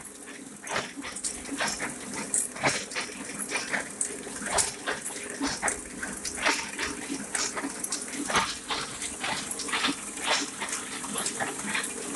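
Ryobi 3200CD sheet-fed offset press running, with a sharp clatter about twice a second as it feeds and delivers sheets, over a steady hum and air hiss.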